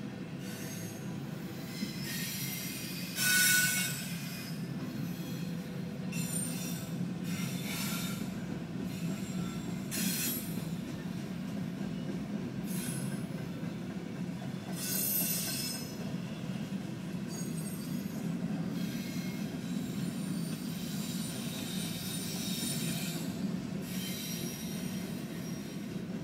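Double-stack container freight train rolling past, its wheels making a steady rumble on the rails. Short high-pitched metal squeals from the wheels break in now and then; the loudest comes about three seconds in.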